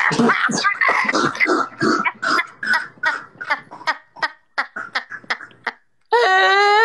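A woman laughing hard in rapid, breathy bursts that grow sparser and gasping. Near the end the laughter turns into a long, high, wailing cry that rises in pitch.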